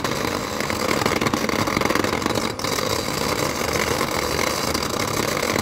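Battery-powered toy blender running steadily, its small motor whirring as it spins the toy fruit pieces in the jar.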